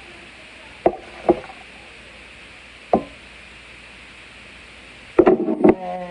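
Kitchenware being handled: a few separate knocks that ring briefly, then a quick run of clatters near the end, over a steady hiss.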